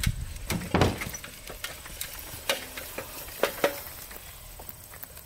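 A dirt bike being rolled off a wooden-decked utility trailer down an aluminium loading ramp: a string of separate knocks and clanks, some ringing briefly.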